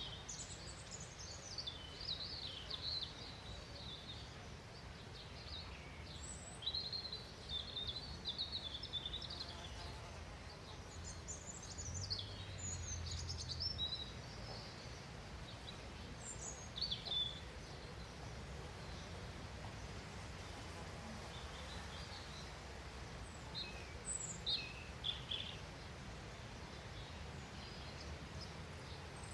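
Small songbirds chirping and twittering on and off in short high-pitched bursts, over a steady low outdoor rumble.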